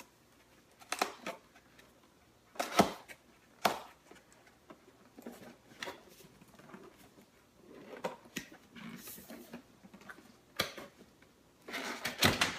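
Scattered knocks, clicks and rustles of a coffee maker and its cardboard and packing being handled during unboxing, with a busier run of handling noise near the end.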